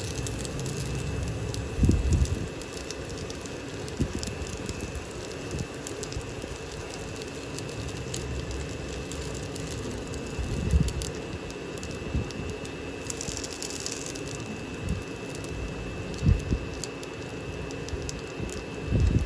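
Dumplings sizzling and crackling in hot oil in a nonstick frying pan, with a few low knocks as they are turned with tongs.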